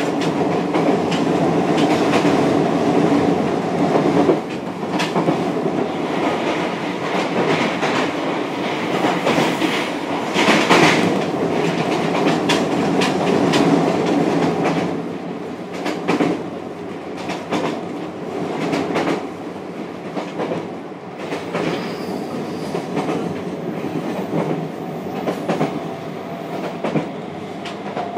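Running sound heard inside the motor car of a JR Kyushu 303 series electric train with a Hitachi VVVF inverter: steady rolling noise and traction hum with repeated clicks of the wheels over rail joints. The running noise eases somewhat about halfway through.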